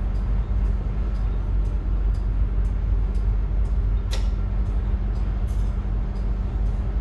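Steady low hum of a cargo ship's machinery heard on the navigation bridge, with two short clicks a little past halfway.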